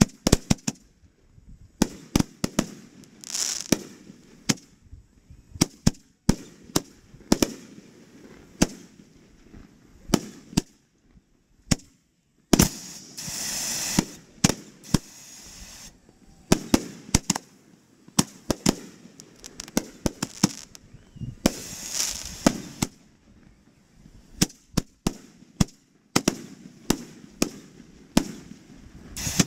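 Aerial fireworks launching and bursting at close range: many sharp bangs in irregular clusters, with a few longer hissing stretches between them.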